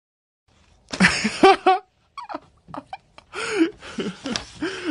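Domestic cat vocalizing: a quick string of short calls about a second in, then several meows that rise and fall in pitch.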